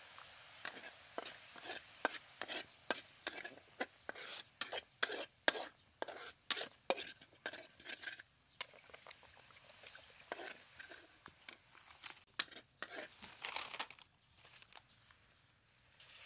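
Metal spatula scraping and clinking against a steel wok, about two strokes a second, as dark sauce is stirred and sizzles in the hot pan. The strokes stop about fourteen seconds in.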